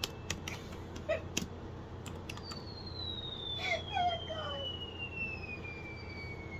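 Sound effect played from a device: a long thin whistle falling slowly in pitch over about five seconds, with a few sharp clicks in the first second and a half and short wavering sounds partway through.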